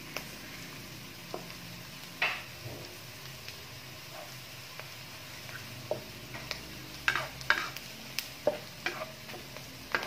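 Chopped onions and garlic sizzling in hot oil in a frying pan as they are sautéed, with scattered scrapes and taps of a spatula against the pan, more frequent in the second half.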